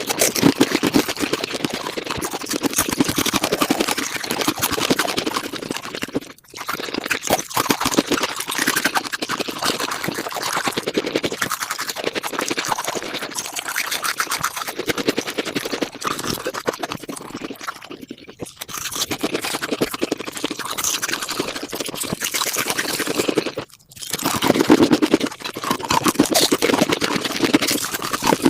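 Eating and chewing sounds played back about five times too fast, so that the chewing blurs into a dense, rapid crackling and scraping, broken by a few brief pauses.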